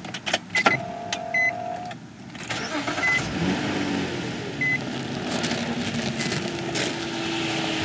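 2005 Nissan Maxima's 3.5-litre V6 being started: clicks and a few short electronic beeps, then the engine catches and settles into a steady idle. A thin steady tone comes in near the end. The owner suspects a failing alternator, which he says starts to whine once the engine has been running.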